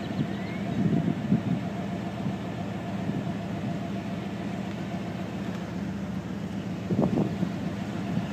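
Steady hum of an idling vehicle engine.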